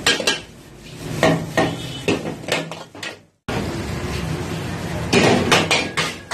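Steel ladle and spatula clattering and scraping against an iron wok as rice is stir-fried and tossed: irregular knocks and scrapes, with a brief dropout a little after three seconds.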